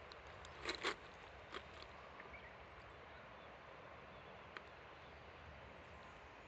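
Faint, steady rushing of the Kuma River flowing, with a low wind rumble on a smartphone microphone. A few sharp clicks come about a second in.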